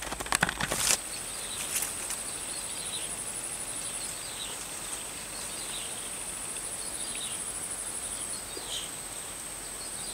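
A steady high-pitched insect trill with short falling chirps repeated about every second or so, from swamp wildlife. A burst of rustling and clicks in the first second is the loudest sound.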